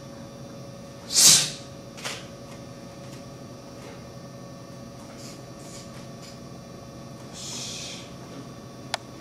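Short forceful breaths of a karate kata, the loudest a sharp exhalation about a second in, a smaller one a second later and a softer hiss of breath near the end, over a faint steady hum.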